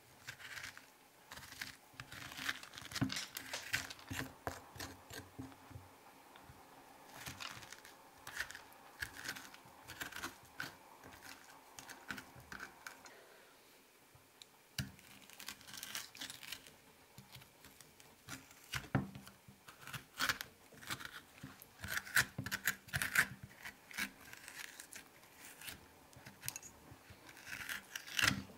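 A metal spoon scraping the seeds and stringy pulp out of a halved butternut squash, in bursts of short, scratchy strokes with brief pauses between them.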